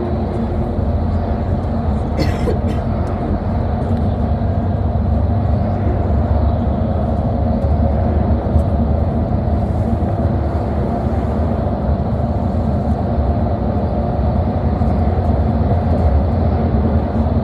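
City bus underway, heard from inside the cabin: a steady low rumble of engine and road noise, with a brief hiss about two seconds in.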